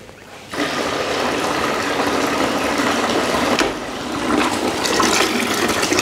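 Washing-machine drain pump, a 220 V brushless pump motor, switched on about half a second in and pumping water out through the drain hose into a bucket: a steady rush of water.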